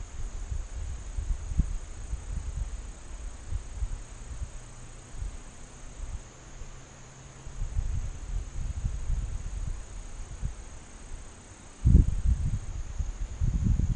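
Steady high-pitched chorus of crickets, picked up by a trail camera's microphone, over an uneven low rumble on the microphone that grows suddenly louder about twelve seconds in.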